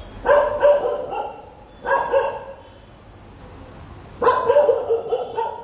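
Dog barking in three bouts of several quick barks each: one near the start, a shorter one about two seconds in, and a longer one about four seconds in.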